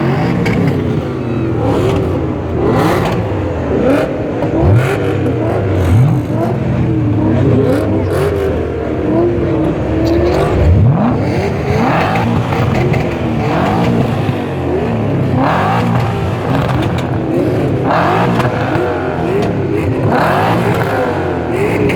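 BMW E39 M5's V8 with a decatted exhaust, revved repeatedly, its pitch sweeping up and falling back several times. The sharpest rise comes about eleven seconds in.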